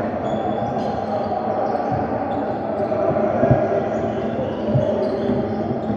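A basketball bouncing on a hardwood gym floor during play, a few low thumps with the loudest about three and a half seconds in. Short high sneaker squeaks come over a steady hubbub of voices in the large hall.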